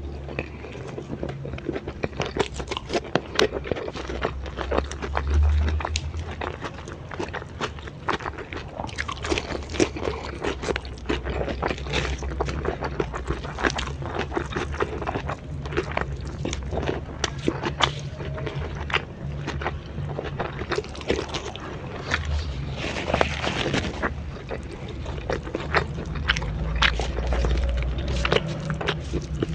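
Eating sounds: crisp crunching bites and wet chewing of raw vegetables and grilled chicken, with many irregular sharp crackles.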